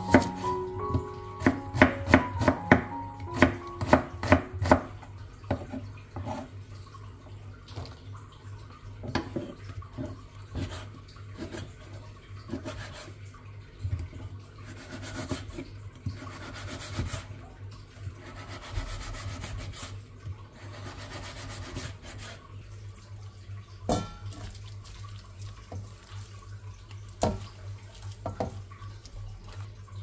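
A quick run of sharp knocks and clatter over the first few seconds, then a steady low hum with a stretch of hiss in the middle and a few single clicks near the end.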